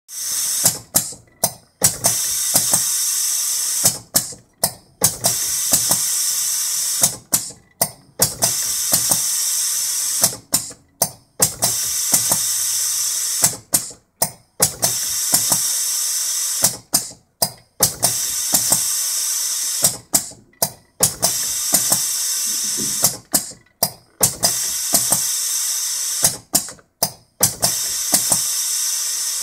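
Pneumatic chocolate-bar-wrapper date-stamping machine cycling over and over: a steady hiss for about two seconds, then a quick run of three or four sharp clacks. The cycle repeats about every three seconds, nine times.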